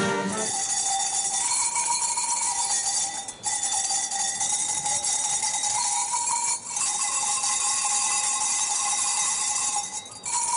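Small hand-held metal bells, several in each player's hands, shaken together in a continuous jangling ring, with brief breaks about three and six and a half seconds in and again near the end.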